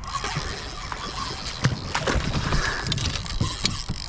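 Water splashing with irregular thumps and knocks against a plastic kayak as a hooked snook is brought alongside and netted. The sharpest knock comes about a second and a half in.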